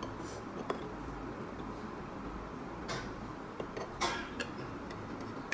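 Close-up eating sounds over a steady hiss: a few small mouth clicks and brief crisp rustles of a leafy green used as a noodle wrap, the loudest rustle about four seconds in.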